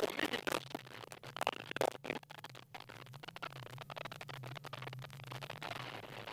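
Faint low drone of the Mitsubishi Lancer Evolution X Group N rally car's engine at speed, its pitch drifting a little up and down, with scattered crackling clicks.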